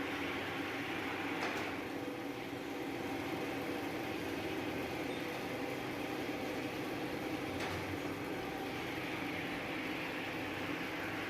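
Planing machine running steadily with a constant mechanical drone, with a couple of faint sharp clicks, about a second and a half in and again near eight seconds.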